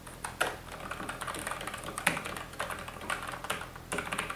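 Typing on a Logitech MX Mechanical Mini keyboard with red linear switches: a run of irregular key clacks, several a second, a bit loud.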